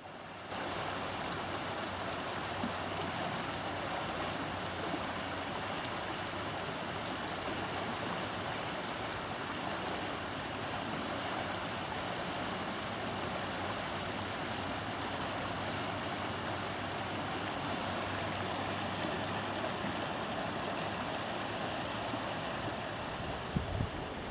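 Steady rushing of water with a faint, steady low hum underneath.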